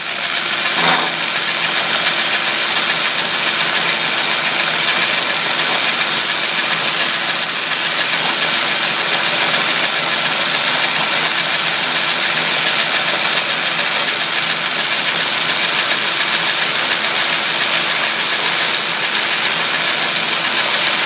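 Atlas lathe fitted with a milling attachment running steadily while an end mill cuts a slot in strap iron: the even hiss of the cut over a constant motor and belt hum.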